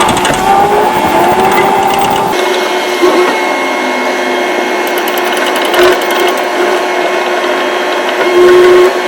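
A small motor running with a steady whine, with a few light knocks and a brief louder tone near the end.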